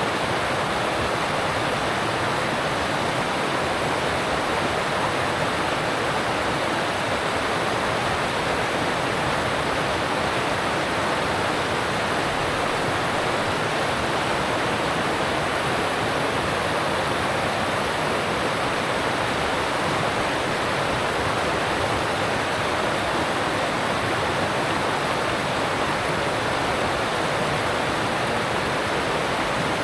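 Alpine mountain stream rushing over rocks: a steady, even roar of water with no change.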